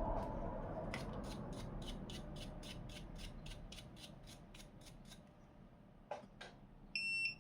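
A run of quick, even clicks, about four a second, fading over a few seconds, then a short electronic beep near the end.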